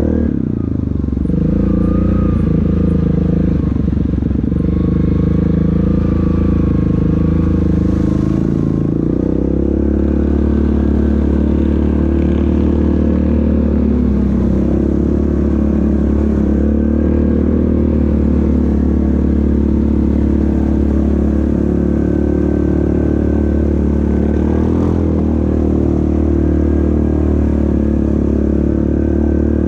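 ATV engine running steadily while riding, with one change in engine note about nine seconds in.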